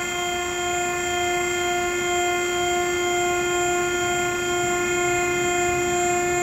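Pallet inverter's power unit running with a steady pitched whine as the machine tilts its platen frame.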